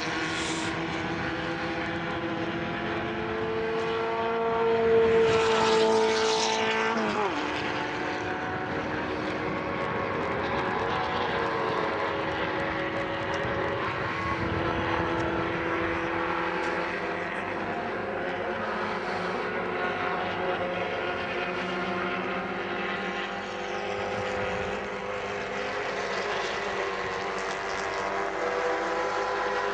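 Several small 850 cc race-car engines running hard at high revs around a circuit. One car comes through louder about five seconds in, and its engine note drops sharply about seven seconds in.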